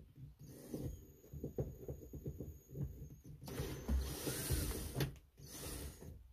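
Cordless drill backing out the sun visor's mounting screws, its motor running in several short spells, loudest around the middle, with small clicks and knocks from the bit and the visor bracket.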